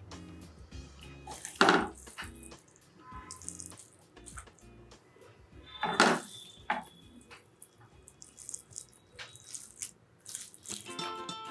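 Soft background music, with two brief wet scraping sounds about two and six seconds in as a spoon moves cooked Maggi noodles onto a ceramic plate.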